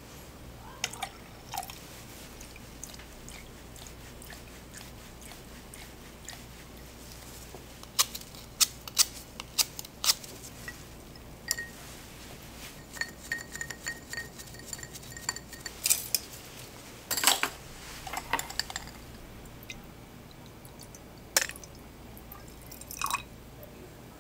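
Scattered clinks, taps and knocks of glassware and utensils being handled, with a clear ringing note that lasts a few seconds near the middle.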